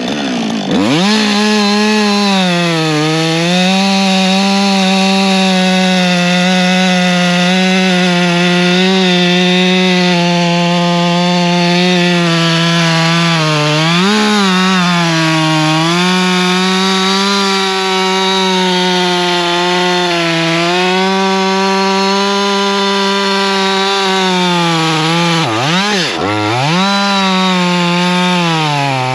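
Husqvarna 562 XP two-stroke chainsaw held at full throttle through a long cut in wood, its engine note steady under load. The pitch sags sharply and recovers near the start and twice near the end.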